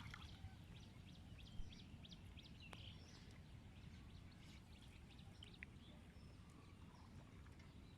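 Near silence: faint outdoor ambience with a low rumble and a few faint scattered clicks, one slightly louder about a second and a half in.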